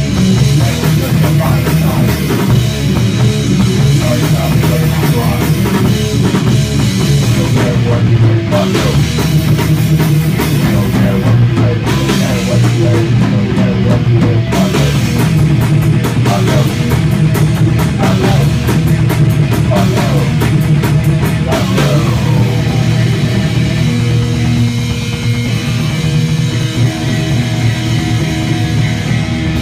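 A rock band playing live and loud: distorted electric guitar, electric bass and a drum kit with cymbals in a heavy, fast passage.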